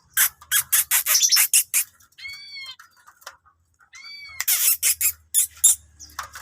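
Birds calling: two short arched chirps stand between two runs of rapid, sharp chirps or rustles, the first run near the start and the second about four and a half seconds in.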